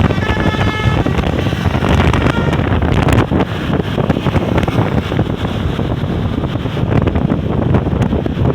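The last notes of a bus's Basuri V3 telolet horn, a few steady tones fading out over the first two seconds. After them, a loud rumbling bus engine and traffic noise, with wind buffeting the microphone.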